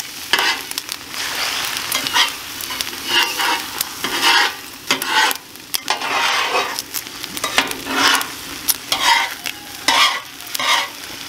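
Metal spatula scraping and chopping across a Blackstone steel griddle top in repeated, irregular strokes, scrambling eggs. Under it runs the steady sizzle of eggs and bacon frying.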